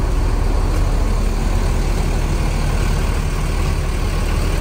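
Diesel engines of parked tour buses idling, a steady low rumble.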